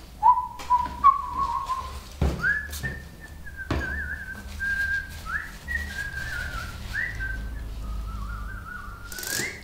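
A man whistling a tune as a single clear, wandering tone. The tune is lower for its first couple of seconds, then steps up and stays higher. A few sharp knocks of objects being handled on a desk come in the first few seconds.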